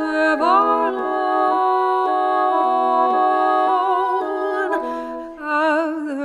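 Baroque chamber music: woodwinds holding sustained chords that change step by step every second or so, the notes turning wavery near the end.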